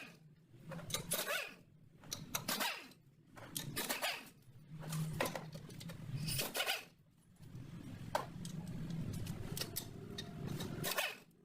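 Hand tools working on metal: irregular short bursts of clicking and rasping, with a faint low hum underneath.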